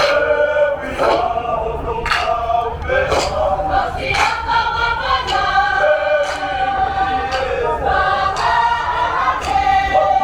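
A Pacific Island school performance group singing together in harmony, many voices holding long notes.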